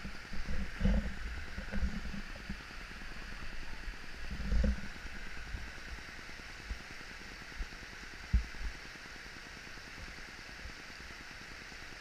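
Small woodland waterfall running over rocks: a steady rush of water. Several low thumps break in over it, the loudest about four and a half and eight seconds in.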